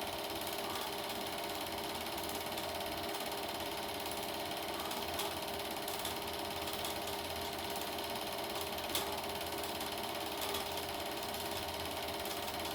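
Super 8 film projector running steadily, its mechanism giving an even whirring clatter.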